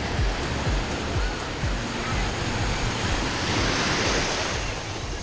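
Ocean surf washing on the beach, with wind buffeting the microphone; a wave surges up a little past three seconds in and then eases off.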